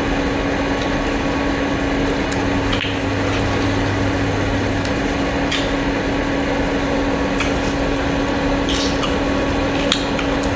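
Close-miked eating of a large cooked abalone: scattered wet chewing and mouth clicks over a steady electrical hum and hiss.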